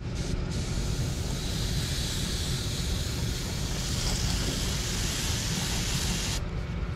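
Airbrush spraying: a steady hiss that starts about half a second in and stops about six and a half seconds in, over a steady low hum.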